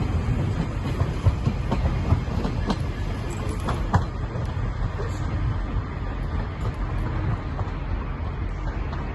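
Passenger train running through the station: a steady rumble with wheels clicking over rail joints, a few sharp clicks in the first four seconds, slowly fading.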